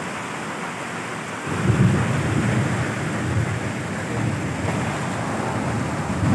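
Fast-flowing floodwater and rain making a steady rushing hiss, joined about a second and a half in by a low rumble that lasts to the end.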